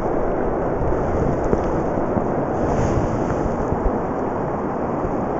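Loud churning river water and low rumble right at the microphone, steady throughout, as the camera is held in the water at a salmon being released from a landing net.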